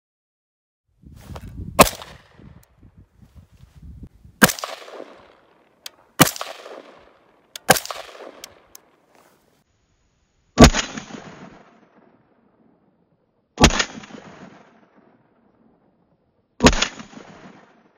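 AR-style rifle fired seven single shots, a few seconds apart, each sharp crack followed by an echo that dies away over about a second. The last three come at an even three-second spacing.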